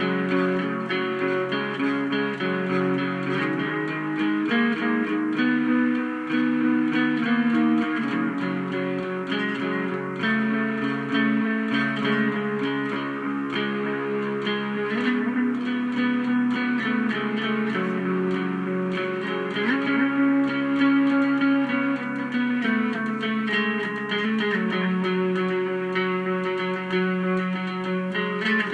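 Bass guitar played through an Electro-Harmonix Bass Big Muff fuzz pedal, with its clean signal blended in, and a Memory Toy analog delay: sustained fuzzy notes that change every second or two, with a few sliding notes.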